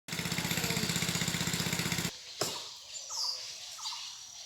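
A small engine running with a fast, even pulse, about a dozen beats a second, cuts off suddenly about two seconds in. A sharp click follows, then a few faint bird chirps over quiet background.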